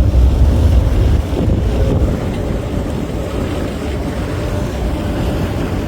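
Steady rush of wind on the microphone and water noise aboard a moving cruise boat at sea. The low buffeting is heaviest in the first second or so, then eases a little.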